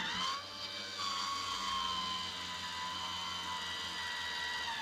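MaxxAir 7000K roof vent fan running: a steady motor whine that steps up slightly in pitch about a second in and then holds.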